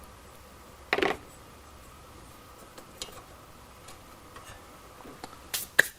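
Scattered clicks and light metallic knocks of small engine parts and tools being handled and fitted: a knock about a second in, a few faint ticks, then two sharp clicks near the end.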